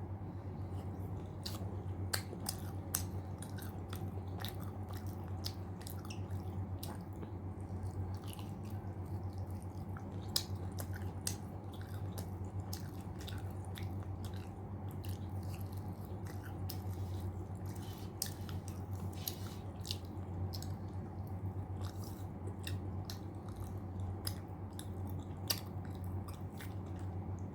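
Close-miked chewing and smacking of mouthfuls of mutton curry and rice, with frequent irregular wet mouth clicks, over a steady low hum.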